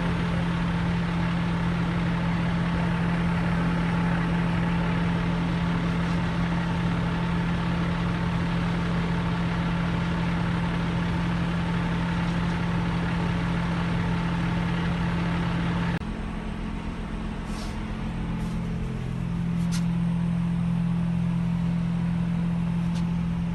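Engine of the heavy lifting machine running steadily under load while it holds a suspended bunker. About two-thirds of the way through, the drone shifts abruptly and drops a little in level, with a few sharp clicks after.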